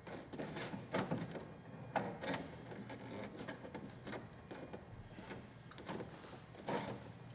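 Faint, irregular clicks, taps and rubbing as a fiberglass fairing panel and its fasteners are handled and fitted to the motorcycle.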